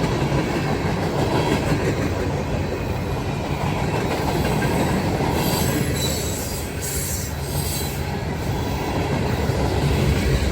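Freight cars of a long mixed freight train rolling past: steady rumble of steel wheels on rail with clicking over the joints, and a brief high wheel squeal about halfway through.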